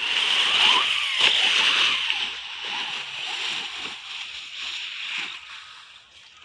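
ZD Racing MT10 RC monster truck tearing through dry fallen leaves: a loud rushing, crunching noise of tyres churning leaves, with irregular knocks, fading toward the end.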